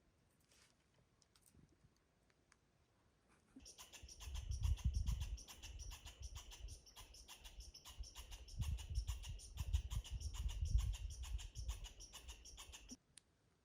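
A small animal calling in a steady run of short, high chirps, about three a second, for roughly nine seconds before stopping abruptly, with wind rumbling on the microphone in two bouts.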